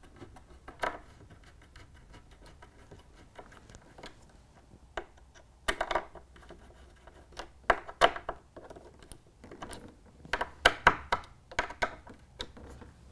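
Irregular small clicks and taps of hard plastic parts and small screws being handled, as point motors are fitted in place.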